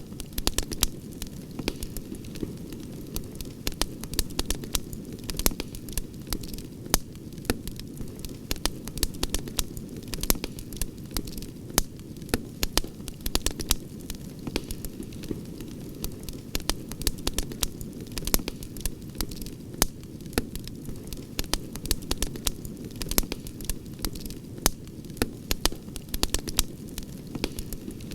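Outdoor wood campfire crackling: many irregular sharp pops and snaps, several a second, over a steady low hiss of burning.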